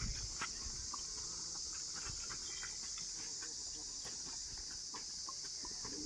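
Steady high-pitched insect chorus, with faint scattered taps of a water buffalo herd's hooves on a dirt lane.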